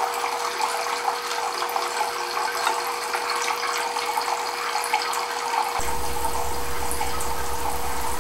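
Thin streams of water falling steadily through a homemade Kelvin's water dropper, a constant trickling and splashing while the device builds up charge. About six seconds in, a low steady hum joins.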